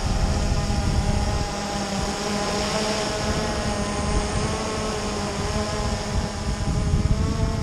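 Drone's propellers whining steadily in flight, the pitch wavering slightly, over wind buffeting the microphone.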